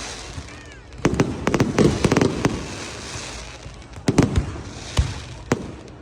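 Fireworks and firecrackers going off: a rapid string of sharp bangs about a second in, then a few single bangs spaced apart, over a crackling hiss.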